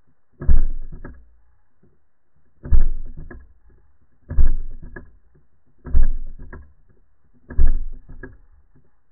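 Air pistol fired underwater five times, heard through the water as dull thumps about one and a half to two seconds apart, each fading over about a second and followed about half a second later by a fainter click.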